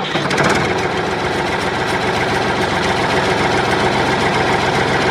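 A small motor, likely a power tool, running steadily with a fast, even rattle.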